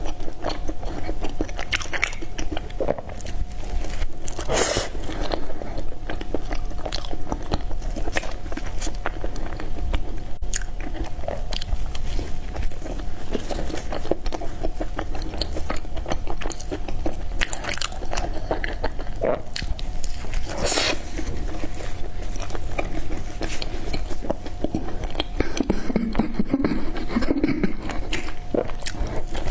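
Close-miked chewing and biting of peanut and black sesame bread: continuous wet mouth sounds with small crunches, and two louder sharp bites about five seconds in and about twenty seconds in.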